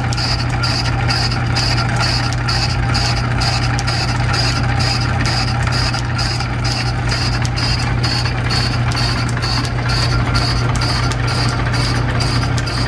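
Flat-belt-driven metal lathe running on line-shaft power, taking a very light cut inside a piston ring held in its chuck. It makes a steady low hum with an even ticking about three times a second.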